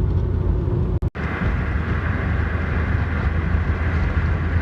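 Steady low rumble of a car driving. About a second in it cuts abruptly to the loud, steady roar of a fast-flowing river.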